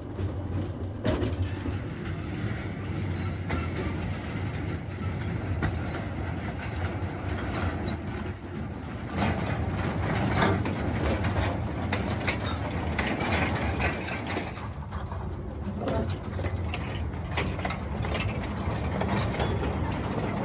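Small 2 ft narrow-gauge locomotive running with its train along the track: a steady low engine drone under continual rattling and clanking as the train bounces along, with the clatter getting busier for a few seconds in the middle.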